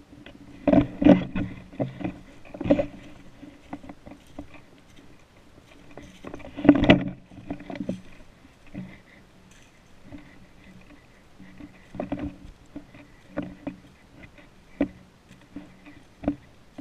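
Irregular knocks, clicks and rustles close to the microphone, from gear or the camera being handled and bumped. They cluster loudest about a second in and again near seven seconds, then come scattered and softer.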